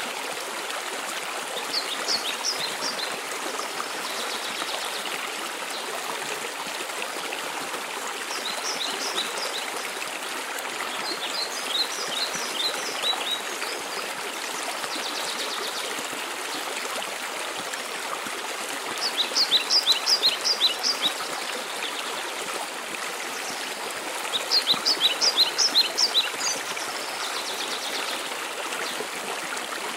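Waterfall rushing steadily. Over it, a songbird sings about five short phrases, each a quick series of high notes, the two loudest after the middle.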